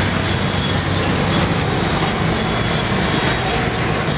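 Steady wind rush and rolling road noise of a moving bicycle, picked up by a camera fixed to its handlebar.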